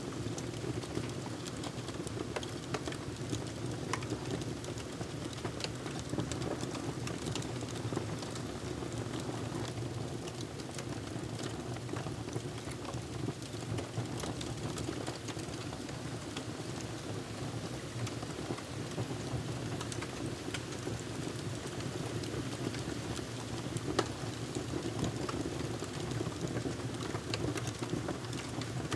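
Wood fire crackling: many scattered sharp pops and snaps over a steady low rushing sound.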